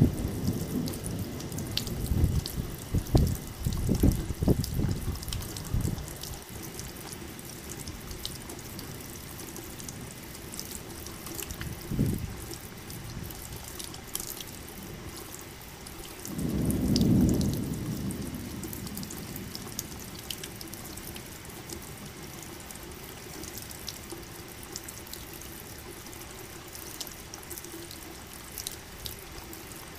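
Rain falling in a forest with rolling thunder: a loud rumble with crackles fades out over the first six seconds, a single low thump comes about twelve seconds in, and a shorter rumble swells and dies away around seventeen seconds. Between and after these, steady rain hiss with scattered drips.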